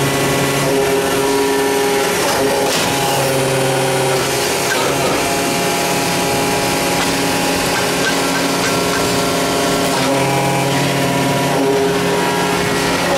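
Alpha 500-ton powder compacting press running through its pressing cycle: a loud, steady machine drone with several hum tones that switch and step in pitch every few seconds as the cycle repeats, and a few sharp knocks.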